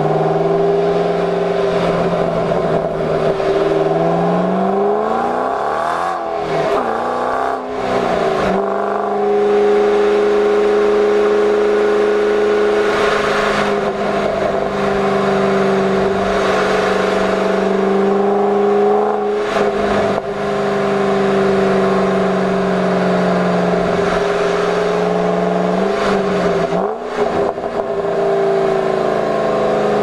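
Ford Shelby GT500's supercharged V8 heard from inside the cabin, accelerating hard. Its pitch climbs and drops at two upshifts, then settles into a steady drone at cruising speed.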